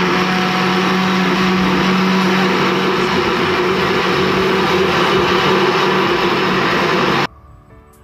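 Electric kitchen blender running at full speed, blending a liquid banana-pudding batter, a steady whirr over a constant motor hum. It switches off suddenly near the end.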